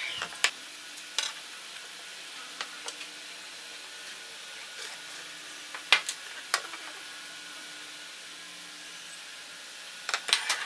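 Light clicks and knocks of a metal speed square and a pine board being handled and set down on a wooden workbench: a few scattered taps, then a quick cluster of knocks near the end, over a steady faint hiss.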